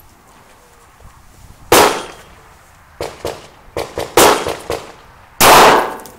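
9mm pistol firing 124-grain +P hollow points at close range: a series of about half a dozen sharp reports of varying loudness, the loudest and longest a little over five seconds in.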